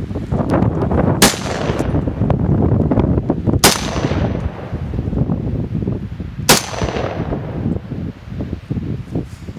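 Ruger Mini-14 rifle firing three single shots, about two and a half to three seconds apart, each a sharp crack with a brief echoing tail. A steady low rustling rumble runs underneath.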